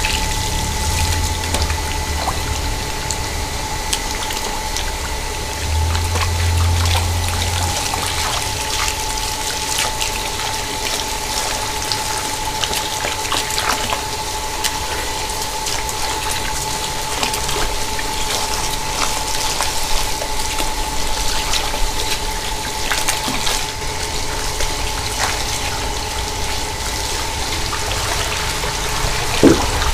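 Water running steadily from a garden hose into a steel basin of apples and pears, splashing over the fruit as it is washed by hand.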